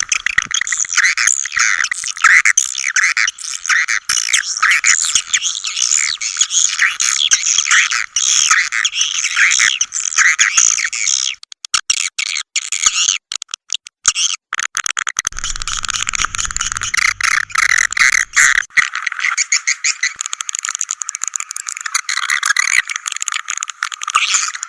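A recorded swiftlet call track: dense, rapid, high twittering chirps of many swiftlets, thinning briefly to scattered clicks about halfway through. This is the kind of lure recording played to draw swiftlets into a swiftlet house.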